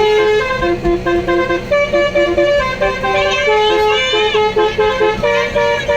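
Basuri musical horn playing a melody: a chain of held notes stepping from one pitch to the next with barely a break.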